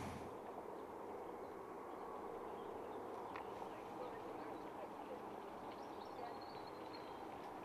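Faint countryside ambience: scattered bird chirps and a brief whistled note over a low, steady hum.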